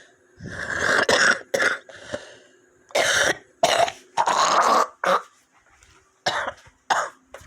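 A woman coughing in a string of about ten short dry coughs and throat-clearings, some run together, with longer fits near the start and about four seconds in. She blames the cough on gas fumes in her home.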